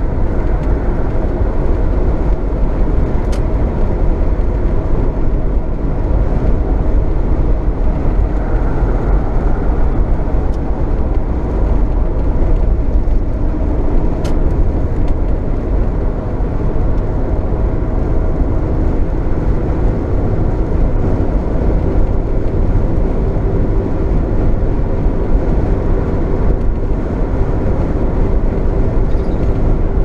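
Steady road noise of a Jeep Cherokee XJ at freeway speed on Cooper Discover A/T3 all-terrain tires with about 10,000 miles on them: the tires humming on the pavement, mixed with wind rushing in through a leak in the left door.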